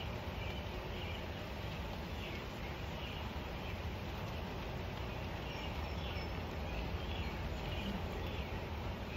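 Outdoor ambience: a steady low rumble with faint high chirps repeating about every half second.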